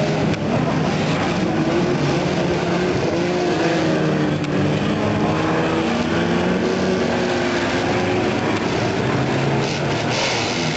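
Engines of several banger racing cars running hard together, their notes wavering up and down as the cars accelerate and slow.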